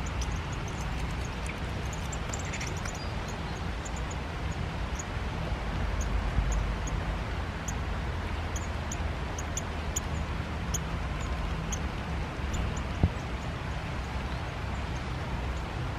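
Steady rain falling on the forest canopy, with a low rumble on the microphone, and many short, very high, thin calls of small birds scattered throughout. A single sharp tap about thirteen seconds in.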